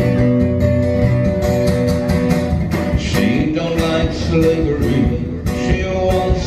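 Live acoustic rock: two acoustic guitars strummed together, with a singer's voice at the microphone over them.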